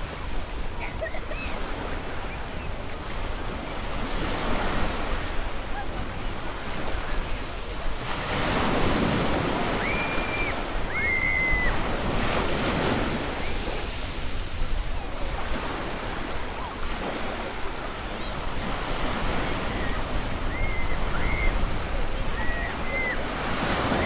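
Beach surf washing in steadily, with waves swelling and breaking about eight seconds in and again around twelve seconds. Short high calls of children's voices come through the surf around ten to eleven seconds and again near the end.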